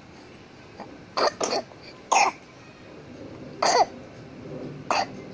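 A young child coughing: five short coughs, the first two close together, then three more spaced about a second or more apart.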